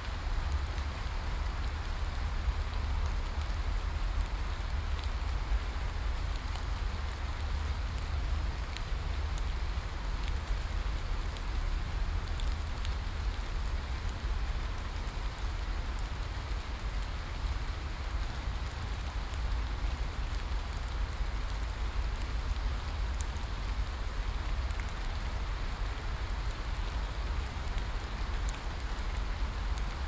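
Steady heavy rain falling on forest leaves, an even hiss with a low rumble underneath and scattered small drop ticks.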